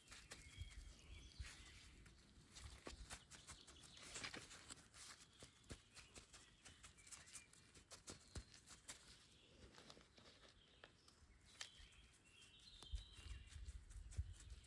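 Faint crackling and rustling of rubber-gloved hands pressing loose coco coir down into a plastic plant pot, with scattered small clicks. A low rumble comes in near the end.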